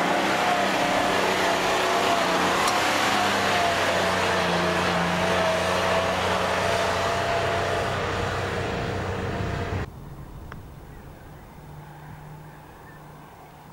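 A vehicle running: steady engine and road noise with a few held tones. It cuts off suddenly about ten seconds in, leaving a quieter low hum.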